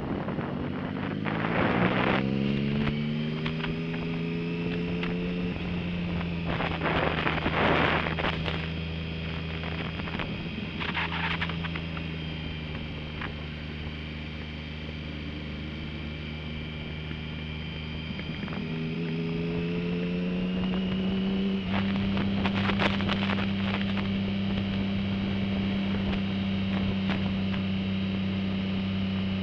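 Motorcycle engine under the rider, revving up as the bike accelerates over the first few seconds, then holding a steady note. It climbs in pitch again about two-thirds of the way through and settles into a steady higher-revving cruise, with gusts of wind buffeting the microphone now and then.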